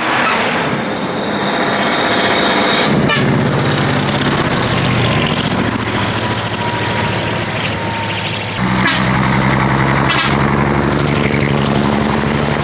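Diesel engines of Japanese decorated trucks (dekotora) running as they pull away. About three seconds in, a sharp burst of air-brake hiss fades over several seconds, and about eight and a half seconds in the engine sound changes abruptly as another truck's engine comes to the fore.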